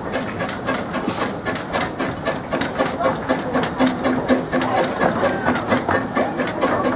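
Small narrow-gauge steam locomotive passing at slow speed: its exhaust chuffs in quick, even beats, with steam hissing.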